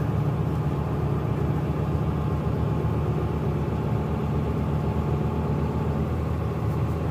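Truck engine running steadily while driving at road speed, a low, even drone heard from inside the cab.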